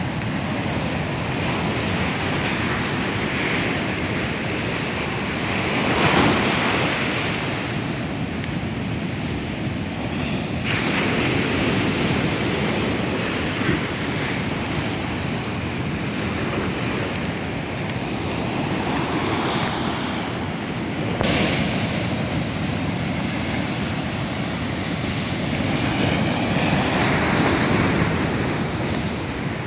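Heavy surf breaking and washing up a sandy beach, swelling in several surges, with wind on the microphone.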